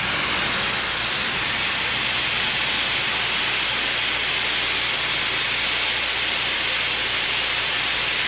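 Dyson Airwrap running with its curling barrel, a steady rush of air with a faint high whine, as it winds and dries a section of hair.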